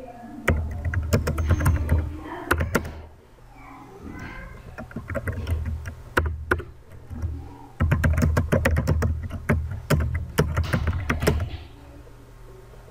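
Computer keyboard being typed on, in three bursts of rapid keystrokes with short pauses between, stopping shortly before the end.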